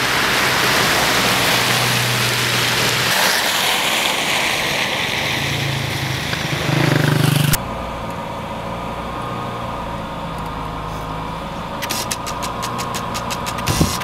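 Road traffic: a steady hiss with a vehicle engine running. About halfway it changes abruptly to a quieter, steady engine hum, with a quick run of ticks near the end.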